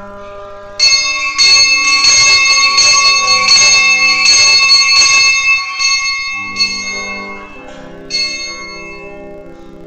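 Bells ringing loudly in quick repeated strokes, starting about a second in and dying away by about six seconds, with one more brief ring near eight seconds. Soft guitar and keyboard music plays underneath.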